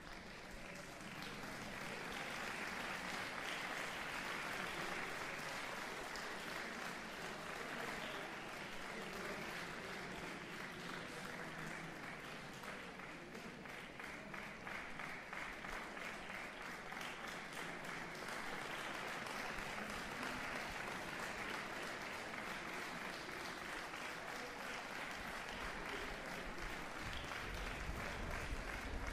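Audience applauding, a steady round of clapping that builds about a second in and keeps up.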